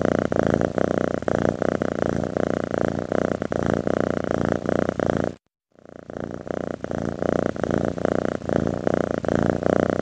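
Domestic cat purring steadily in a fast, even pulse. The purr cuts out for a moment about halfway through and fades back in.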